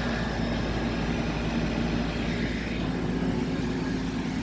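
Outdoor air-conditioner condensing units running: a steady compressor hum with the whoosh of the condenser fans.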